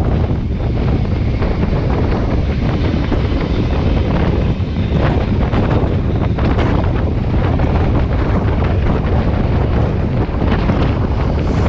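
Wind buffeting the microphone, loud and steady, over the low rumble of a moving steam-hauled train.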